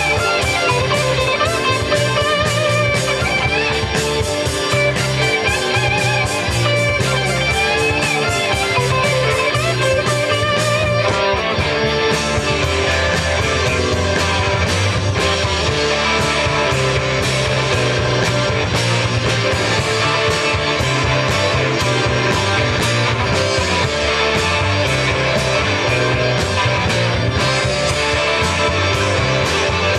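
Rock band playing an instrumental passage: electric guitar lead with bending notes over bass and drums, the drums growing denser and more driving from about halfway through.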